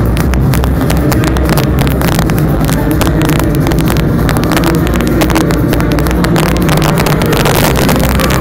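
Fireworks bursting overhead, with a dense, rapid crackle of many small cracks and pops over a constant heavy low rumble.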